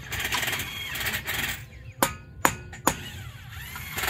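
A hammer strikes the steel leg of a solar-panel mounting stand three times, about half a second apart, roughly two seconds in. A rough scraping noise comes before the strikes and again near the end.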